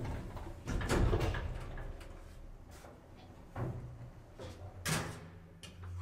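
Elevator car's doors and mechanism clunking and clicking: a loud thump about a second in, then a few sharp clicks, the loudest near the end.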